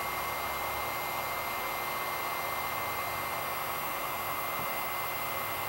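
Hot-air heat gun on its low setting blowing steadily: an even rush of air with a faint steady high whine, as it heats surface-mount parts on a circuit board to melt their solder.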